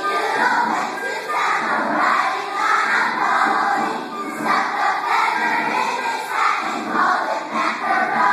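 Large children's choir singing loudly together, many young voices blending in unison.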